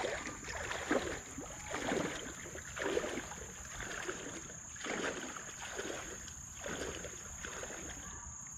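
Rubber boots wading through a shallow creek, each step a splashing slosh, roughly once a second.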